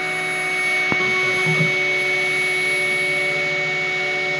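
Home-made CNC router engraving a copper-clad circuit board with a fine bit: the spindle runs with a steady high whine over a steady hiss. Lower hums from the axis drives shift in pitch as the moves change, with a single sharp click about a second in.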